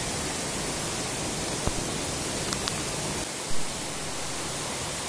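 Waterfall rushing steadily. A few faint clicks are heard, and a short dull thump comes about three and a half seconds in.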